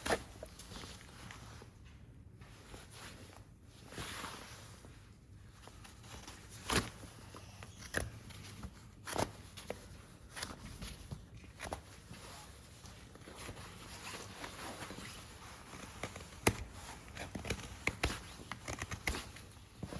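Hoof trimming tools working on a horse's hoof: uneven scraping with sharp clicks and snips scattered throughout.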